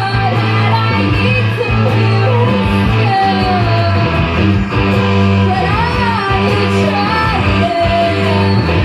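Live rock band playing: electric guitar, bass and drums under a sung vocal melody.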